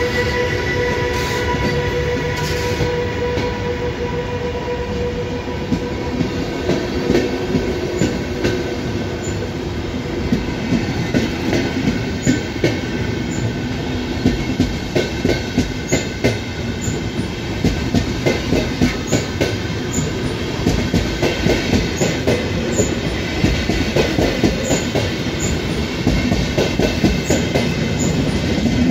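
A locomotive-hauled train of passenger coaches rolling past at close range. A steady electric whine from the El18 locomotive fades over the first few seconds, then the coach wheels clack rhythmically over rail joints, the beat growing quicker as the train picks up speed.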